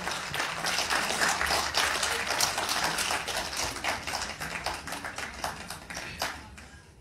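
Audience clapping, many separate sharp claps together, thinning out and dying away near the end.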